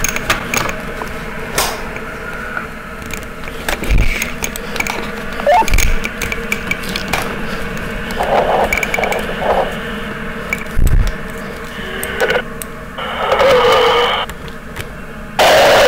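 Walkie-talkie giving out crackling static with clicks, a steady tone and noisy bursts, ending in a loud blast of static near the end. A few dull thumps come through it.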